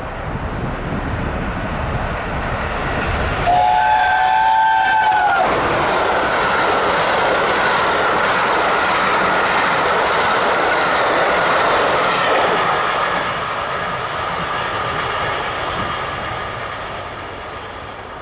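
Three-cylinder steam locomotive 60163 Tornado (LNER Peppercorn A1 Pacific) running through at speed: a deep rumble as it approaches, then a chime steam whistle sounds for about two seconds and cuts off. The loud rush and clatter of its coaches going by follow, fading as the train draws away.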